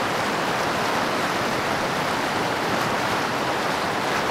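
Steady rushing of a fast mountain river running over rocks.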